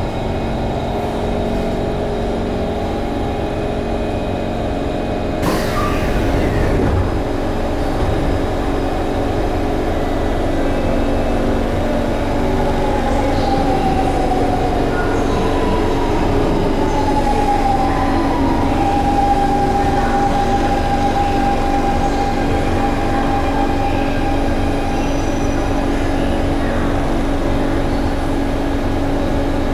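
Steady hum of a C151 metro train's equipment inside the carriage, standing at a platform. About five and a half seconds in, a sudden burst of noise as the doors open. From about twelve seconds, a whining tone falls in pitch and then holds steady.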